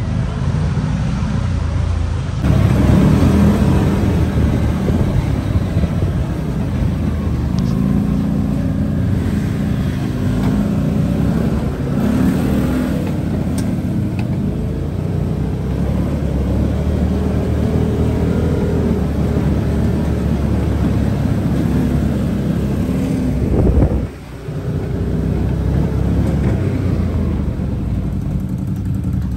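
A motor vehicle's engine running, its pitch rising and falling at times. The sound changes abruptly about two seconds in and drops out briefly near the end.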